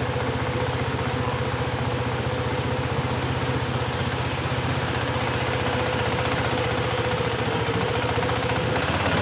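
Small boat's engine running steadily at a constant speed, with a fast, even chugging beat and a steady hum.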